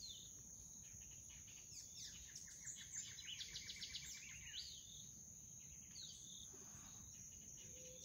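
Faint outdoor ambience: a steady high-pitched insect drone, with a bird calling over it: a rapid trill from about two and a half to four and a half seconds in, and a few short down-slurred notes.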